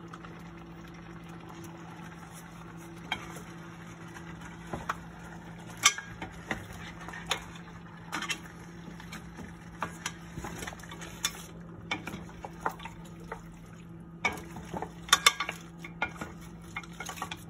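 Shell-on seafood tossed with a wooden fork and spoon in a stainless steel pot: irregular knocks and clacks of shells and wood against the metal, a few sharper near the end, over a steady low hum.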